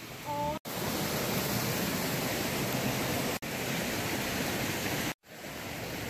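A creek rushing under a footbridge: a steady, even hiss of flowing water. It cuts out abruptly about half a second in and again near the end.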